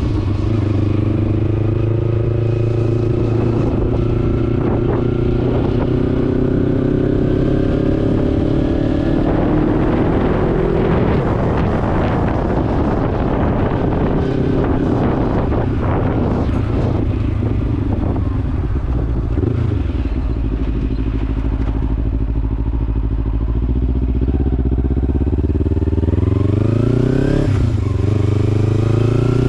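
Kawasaki Ninja 300's parallel-twin engine on a test ride, pulling up through the revs with a rising pitch, settling lower, then revving up again near the end.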